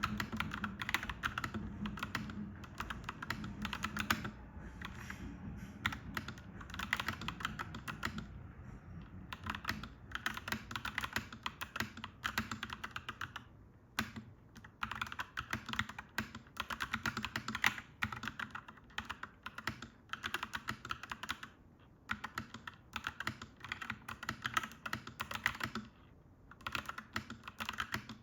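Fast typing on a clacky mechanical keyboard: dense runs of key clacks broken by short pauses. A low background rumble fades out over the first dozen seconds or so.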